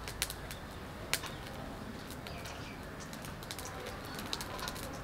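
Knife blade tapping on a wooden cutting board while dicing, an irregular run of sharp clicks.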